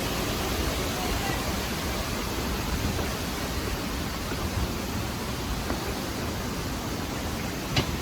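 Kegon Falls' water rushing steadily, an even noise with no rhythm. A single sharp click comes near the end.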